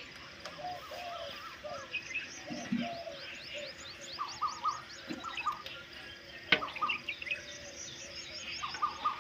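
Several small birds chirping and calling over one another in a morning chorus, with a single sharp knock about six and a half seconds in.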